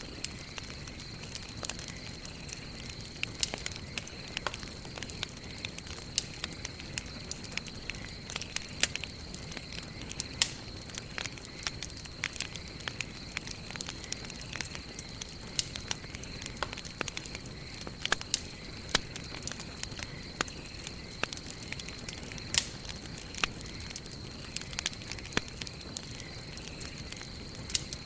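Wood burning in a campfire, crackling steadily with irregular sharp pops, some louder than the rest, over a low hiss. A thin, steady high tone runs underneath.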